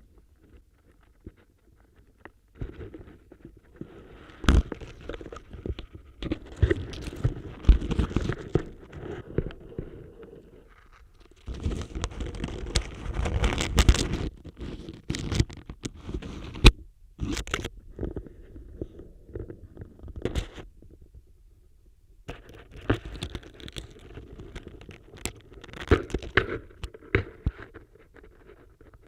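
Dry autumn leaves crunching and crackling close against a contact microphone, as the borescope probe it is attached to pushes and scrapes through them. The crunching starts a couple of seconds in and comes in bouts of dense crackles and sharp snaps, with two short lulls in the second half.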